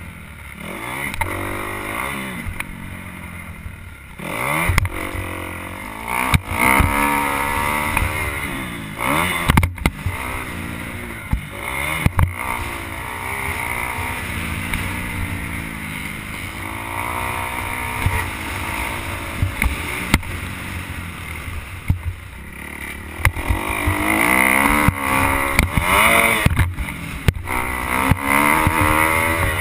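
Motocross bike engine revving up and down again and again as it is ridden around a dirt track, with sharp knocks and clatter from the bike over the bumps. It gets louder in the last third. Heard from the rider's helmet.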